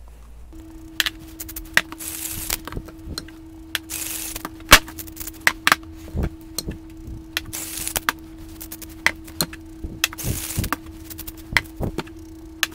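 Spice shakers shaken over raw pork chops in a glass baking dish: several short hissing rattles of seasoning grains, with scattered sharp clicks and knocks of the chops and shakers against the glass dish. A faint steady hum starts about half a second in.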